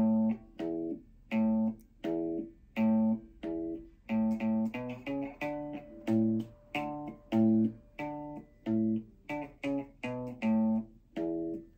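Guitar picked one string at a time, playing a simple melody of single plucked notes, about two or three a second, each ringing briefly and dying away.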